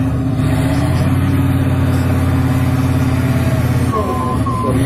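Tatra trial truck's diesel engine running loud and steady at a near-constant pitch as the truck crawls through the mud.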